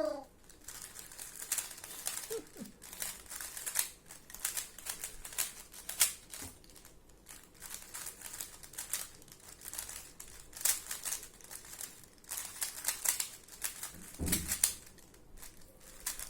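Plastic speed cube (Rubik's cube) being turned fast during a speed solve: rapid, irregular runs of clicking and clacking layer turns with brief pauses. A short low thump comes about 14 seconds in.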